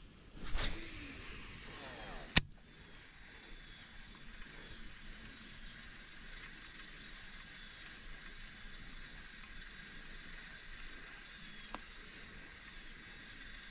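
A fishing cast: a short whoosh as the line pays out, then a sharp click about two seconds later, likely the reel's bail or handle snapping shut. After that comes steady outdoor background hiss, with one faint click near the end.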